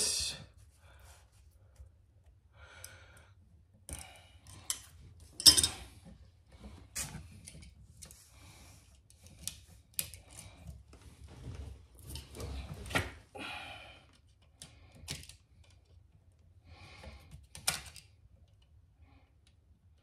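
Irregular clicks, taps and rustles from hand work on household wiring: stiff copper wires, hand tools and a plastic outlet receptacle being handled as it is wired up. The sharpest click comes about five and a half seconds in.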